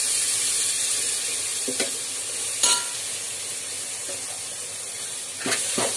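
Onion and red chilli masala sizzling in oil in a large aluminium pot as ground coconut masala paste is ladled in. A steel ladle clinks against the pot a few times: once with a short ring near the middle, and several times near the end.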